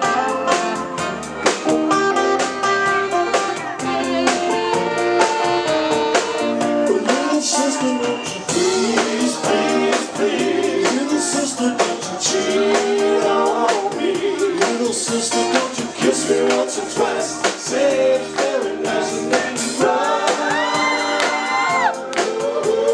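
Live band playing an upbeat rock number: electric bass, drum kit with steady cymbal beats, and saxophone, with sung vocals over it.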